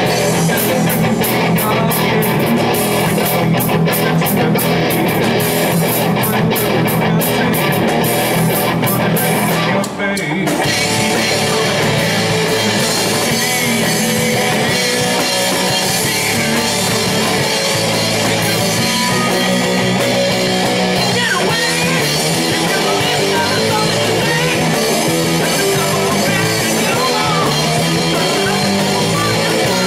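Live rock band playing amplified guitars and a drum kit, with a man singing at times. About ten seconds in the music breaks off briefly, then comes back in fuller.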